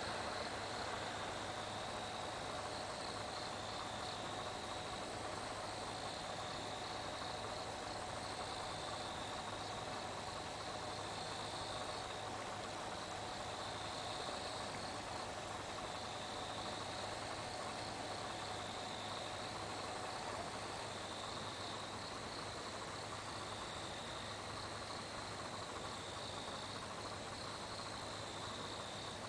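Crickets chirring continuously, a high trill that swells and fades every second or two over a steady hiss. A faint steady hum underneath stops about two-thirds of the way through.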